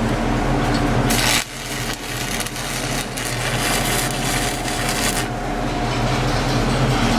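Stick-welding arc crackling and sizzling while a tack weld is laid, most intense from about a second in to about five seconds in, over a steady electrical hum.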